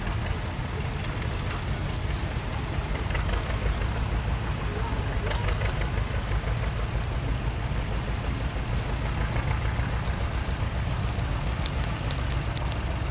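Vintage farm tractors (Oliver, Ford and John Deere) driving slowly past one after another, their engines running with a steady low rumble.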